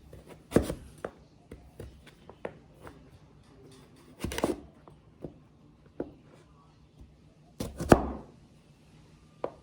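Hand-forged knife cutting breadfruit into fry-sized strips: a run of irregular sharp knocks as the blade goes through, the loudest about half a second in, around four and a half seconds, and near eight seconds.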